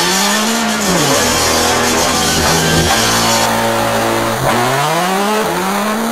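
Harsh noise music: a dense wash of distorted hiss over a low droning tone that bends up in pitch and falls back, once near the start and again, twice in quick succession, near the end.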